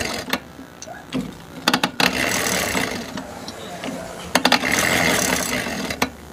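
Yamaha Jupiter Z engine's exposed clutch and gear train turned over by hand through the rear wheel in gear, giving a rough ratcheting 'krek-krek' with clicks and two longer grinding spells. It sounds as if something inside is broken.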